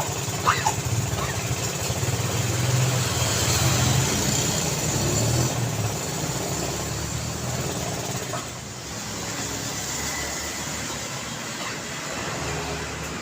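Street traffic: a motor vehicle's engine rumbles past, loudest about four seconds in and dropping away about eight seconds in, over a steady wash of traffic noise.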